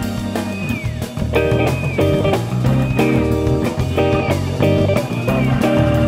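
Rock band playing an instrumental jam live: electric guitar repeating short phrases, some notes sliding downward, over bass guitar and drum kit.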